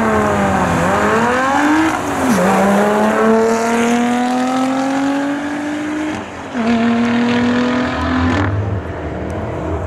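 Lotus Evora 400's supercharged V6 launching hard with a loud exhaust, its note climbing through the revs alongside a second car. The pitch drops at an upshift about two seconds in, then rises in a long pull before fading near the end as the cars draw away.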